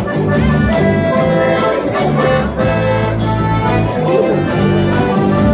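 Rondalla ensemble of guitars and other plucked strings playing an instrumental passage of a song, with sustained melody notes over a steady bass line and no singing.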